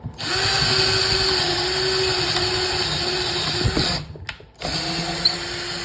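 Hart 20V cordless hammer drill running in drill mode on low speed (gear 1): the motor runs steadily for about four seconds, stops briefly, then starts again.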